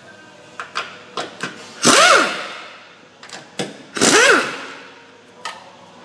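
Air ratchet run in two short bursts, about two seconds apart, its motor pitch rising and falling each time with a loud air hiss, spinning off the 14 mm upper strut-mount nuts on the strut tower. Light metallic clicks and taps come between the bursts.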